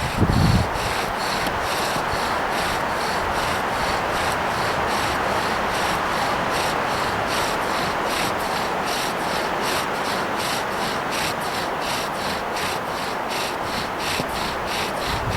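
Steady rhythmic rubbing or rasping, about three strokes a second, with no break.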